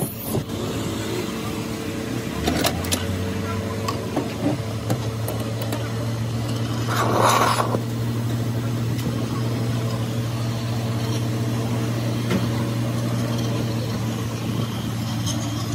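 Hose-fed gas torch burning steadily over a constant low hum as its flame heats a tin can, with a brief louder hiss about seven seconds in.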